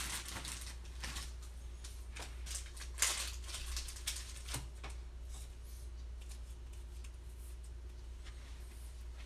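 Faint scratchy rustling and small clicks of a trading card being slid into a plastic sleeve and a rigid toploader, mostly in the first four seconds and then tapering off, over a steady low hum.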